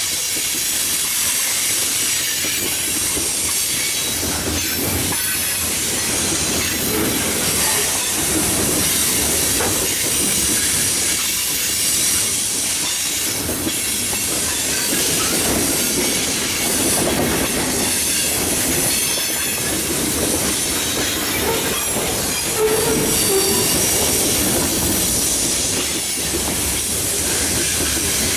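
Freight cars of a passing mixed freight train rolling by at trackside: steady noise of steel wheels on rail with a high hiss and some wheel squeal.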